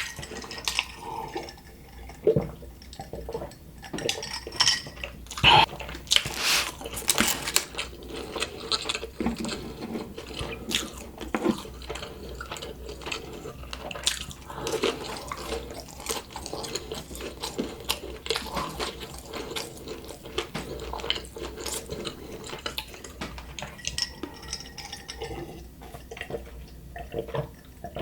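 Close-miked eating of McDonald's fast food: steady wet chewing with many small mouth clicks and smacks.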